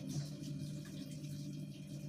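Quiet room tone with a steady low hum and a faint hiss.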